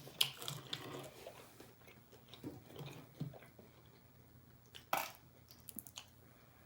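A person biting and chewing crunchy fried chicken strips and fries: scattered small crunches and mouth clicks, with a sharper crunch about five seconds in.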